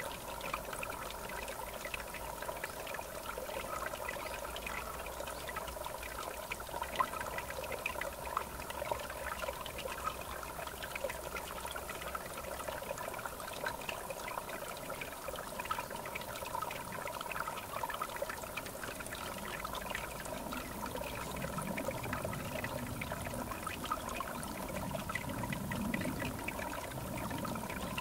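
River water running and gurgling steadily, a continuous babbling wash that takes on a lower, fuller gurgle near the end.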